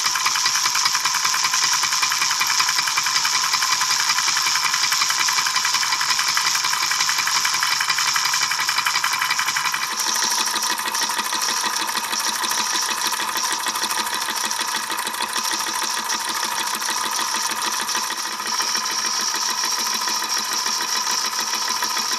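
Weeden No. 14 toy steam engine running fast: a rapid, steady mechanical clatter with a steady hiss. The tone shifts slightly about ten seconds in.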